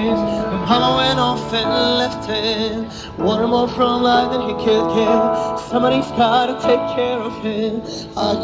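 Music: a song sung by a solo voice with acoustic guitar accompaniment.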